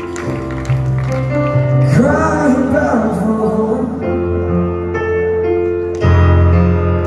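Live ballad on grand piano: held piano chords with a male voice singing a short phrase about two seconds in. A deep bass note swells in louder about six seconds in.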